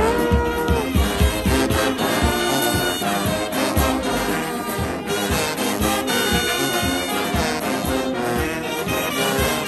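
Large brass band of sousaphones, trombones and trumpets playing together: sustained brass chords over a pulsing, rhythmic bass line.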